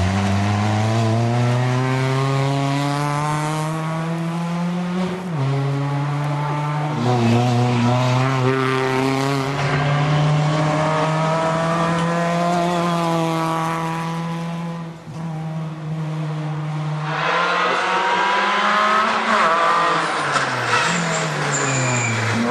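Škoda Fabia rally car at full stage pace, its engine revving hard and climbing in pitch, then dropping sharply at each gear change, several times over. The engine briefly dips about halfway through, then rises again with a rougher, harder-driven sound near the end.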